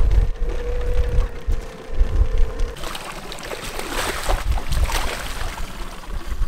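Wind rumbling on the microphone with a steady hum, which cuts off a little under three seconds in. Then water splashing as a hooked salmon thrashes at the surface beside the boat.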